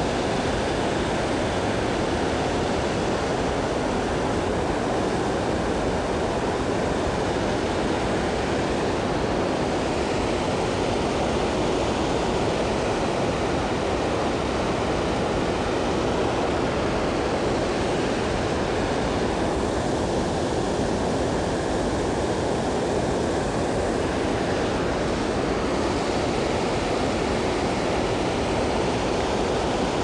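Mountain stream rushing steadily over a rocky bed.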